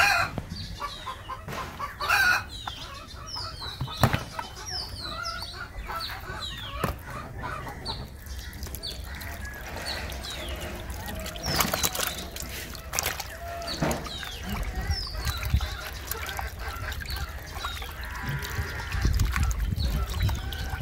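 Chickens clucking and calling, with short high chirps repeating throughout and a few sharp knocks early on. Near the end, tap water runs into a plastic basin holding the cleaned fish.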